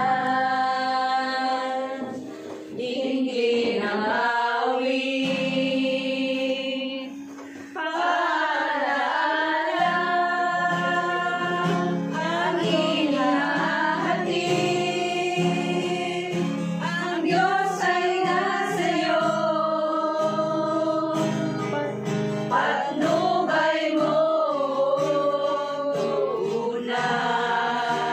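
A group of women singing a song together, with long held notes.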